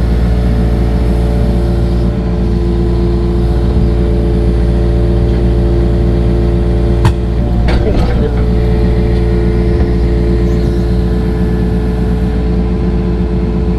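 Engine of earth-moving equipment running steadily, with a sharp click about seven seconds in and a brief clatter just before eight seconds.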